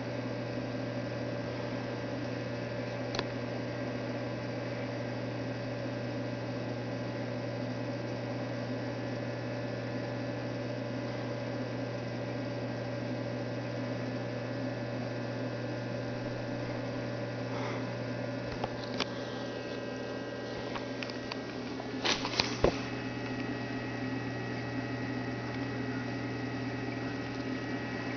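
Steady hum of aquarium equipment, such as the tank's pump, with a light hiss. A few sharp clicks and knocks come through it, with the loudest quick cluster about two-thirds of the way in.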